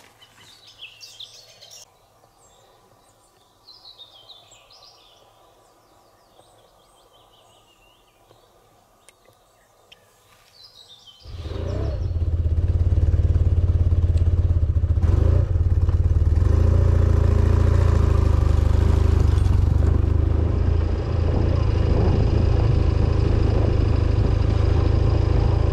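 Faint bird chirps, then about eleven seconds in a motorcycle engine comes in loud and steady, heard from on board while riding.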